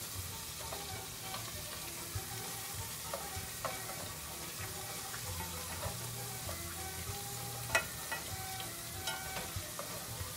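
Food sizzling in hot oil in a pan: a steady frying hiss with scattered sharp clicks, the loudest about three-quarters of the way through.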